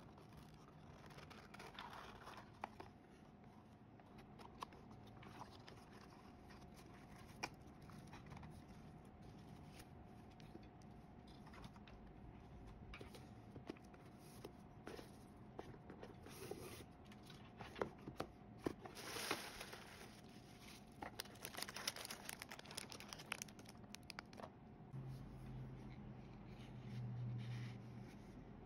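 Faint handling sounds: scattered small clicks and rustling, busiest in the second half, over a faint steady hum, with a low hum rising near the end.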